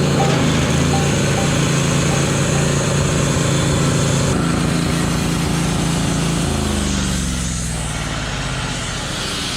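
Small gasoline engine of a homemade log mill running at high, steady speed; about six and a half seconds in its pitch falls and it slows down as the throttle comes off.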